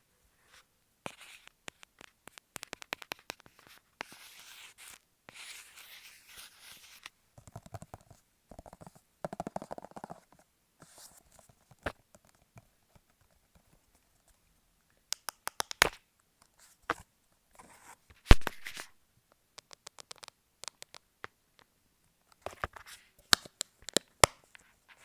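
Adhesive tape handled close to the microphone for ASMR: sticky tape pulled and peeled with a rasping hiss for a few seconds, then scattered sharp taps and clicks, the loudest about eighteen seconds in.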